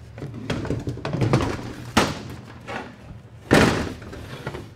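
A Ford 4R70W transmission case being shifted and turned on a steel workbench: scraping and knocking, with a sharp thud about two seconds in and a louder one about three and a half seconds in.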